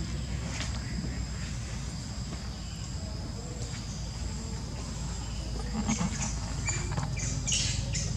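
Macaques giving a few short, rough cries near the end, over a steady high insect drone.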